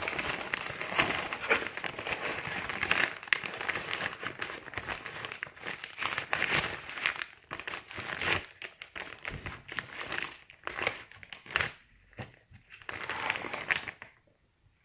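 Crinkling and rustling of a brown sugar package as brown sugar is scooped out and packed into a measuring cup; dense at first, turning sparser and stopping near the end.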